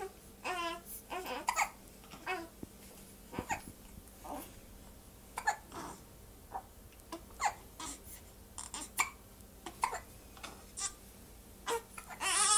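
Repeated short hiccups, irregular, roughly one a second, mixed with brief high-pitched voiced squeaks and fussing sounds. A louder whimpering cry comes near the end.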